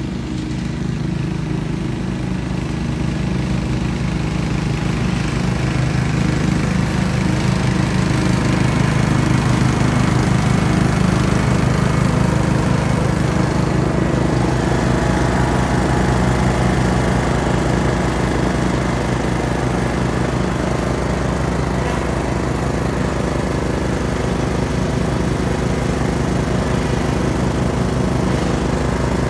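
Simplicity Coronet rear-engine riding mower running steadily while mowing grass, growing louder over the first several seconds as it comes near.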